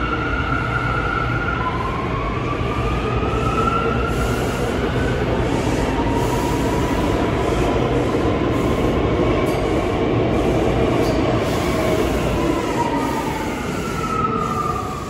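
New York City subway train running at a station: a steady rumble of wheels and motors, with whining tones that slowly rise and fall.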